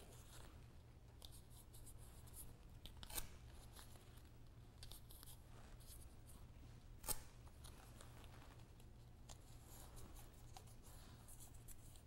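Blue painter's tape being torn off and pressed down by hand onto a metal door, faint crinkling and rubbing, with two short sharp tearing snaps about three and seven seconds in.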